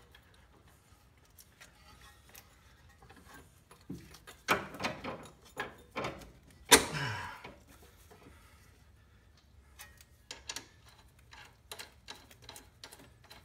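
Metal clinks and knocks from hand work on a Porsche 996's front suspension as parts and a nut are fitted loosely at the lower control arm ball joint. There are a few louder knocks around the middle and a quick run of small metallic clicks near the end.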